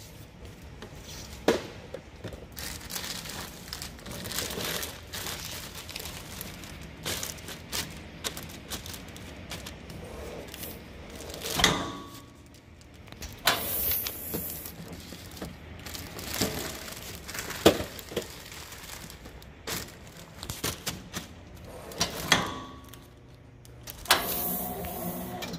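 Plastic poly film crinkling as it is handled on a hot-knife L-bar sealer, with scattered sharp knocks and clunks from the seal bar and frame being brought down and lifted, several of them loud.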